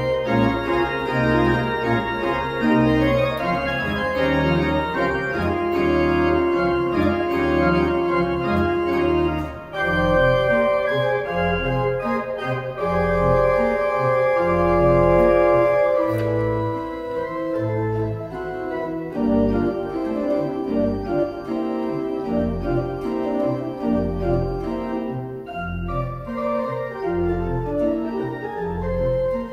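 Pipe organ playing a chirpy, jazz-tinged melody in sustained chords over a detached, ostinato-style pedal bass, with a brief break in the sound about ten seconds in.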